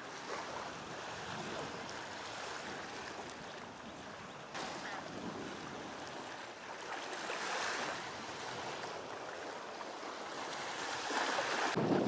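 Small waves washing in the shallows at a sandy shore, with wind on the microphone; the wash swells and fades a few times.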